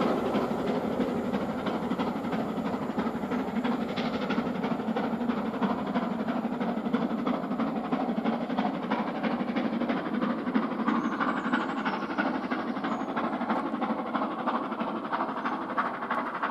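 Stanier 8F 2-8-0 steam locomotive 48151 working hard at the head of its train, its exhaust beat slowly fading into the distance as the rear coaches roll past and away over the rail joints.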